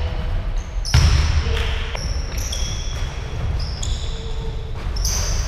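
Pickup basketball on a wooden gym floor: sneakers squeak several times in short high chirps, and the ball bounces with sharp thuds about a second in and again near the end, over players' voices.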